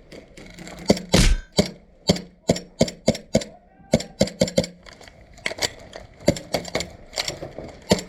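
Airsoft gunfire: a rapid, irregular string of sharp snapping shots and hits, a few a second, with one louder, longer crack about a second in.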